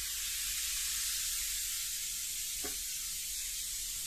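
Baking soda fizzing as vinegar is poured onto it: a steady, high hiss that cuts off suddenly at the very end.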